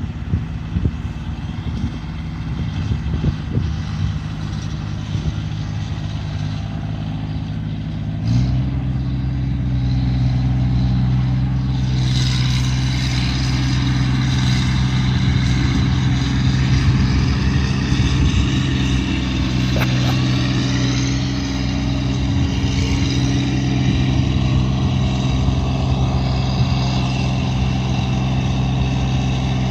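A motor-vehicle engine running steadily; about eight seconds in it speeds up to a higher, louder pitch and holds there, with a rushing hiss added from about twelve seconds.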